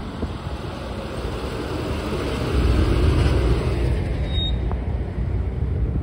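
Chevrolet box-body fire canteen truck driving past at low speed: engine and tyre noise that swells to its loudest about halfway through, with a deep rumble and no siren.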